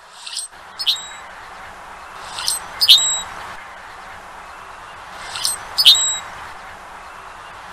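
Male Euphagus blackbird singing its short creaky, squeaky song three times, about every two and a half seconds. Each song is a pair of sharp notes ending in a thin high whistle. A steady background hiss runs underneath.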